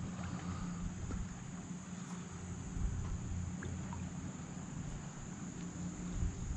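Steady high-pitched insect drone from the riverside over a low, even rumble, with a few faint knocks, typical of a paddle touching a canoe or kayak hull.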